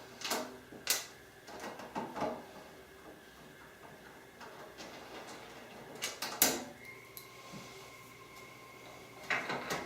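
Phillips screwdriver and hands working the screws out of the underside of an air-purifier housing: scattered clicks and knocks, the loudest about six and a half seconds in. A faint steady high tone comes in about seven seconds in.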